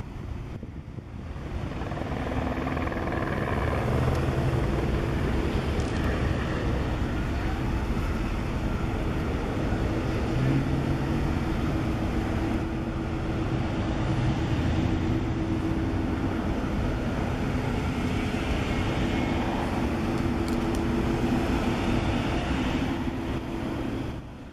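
A line of police cars and SUVs driving past, their engines and tyres making a steady, continuous sound. It fades out near the end.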